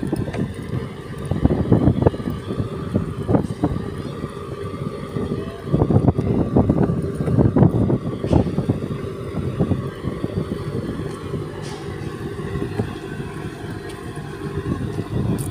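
Steady engine drone from a docked passenger fast craft, with wind gusting against the microphone.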